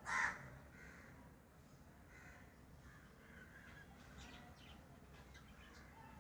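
A pet lovebird gives one loud, harsh screech right at the start, then only faint chirps and small clicks follow.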